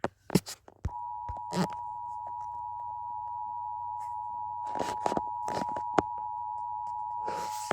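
Emergency Alert System two-tone attention signal, two steady tones sounding together just under 1 kHz. It starts about a second in and holds unbroken, marking the start of a broadcast emergency alert, here a severe thunderstorm warning. Scattered clicks and crinkling noises sound over it.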